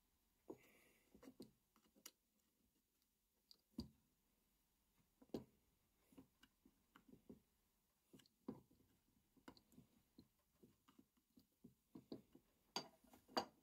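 Screwdriver working on a vintage breast drill's gear and frame during disassembly: faint, irregular clicks and taps of steel on metal parts, with a couple of louder knocks near the end.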